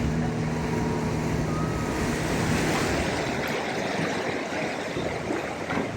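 A boat engine's steady hum fades out a bit under halfway through, over a constant wash of sea waves and wind on the microphone.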